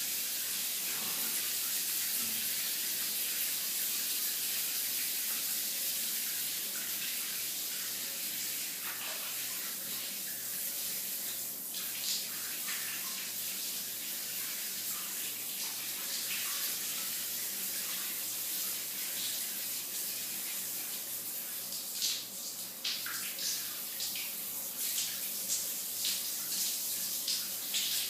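Shower running: a steady hiss of spraying water, with irregular splashes and patters that grow more frequent and uneven in the last third.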